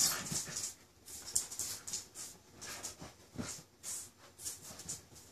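Two dogs play-wrestling: a string of short, irregular dog noises and scuffles as they mouth at each other.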